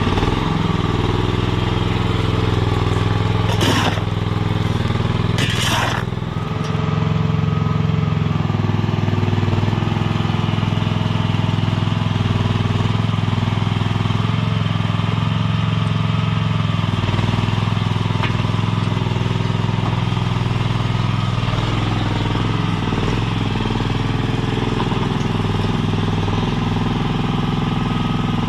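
Mini skid steer's small engine running steadily at working speed, with two short sharp noises about four and six seconds in.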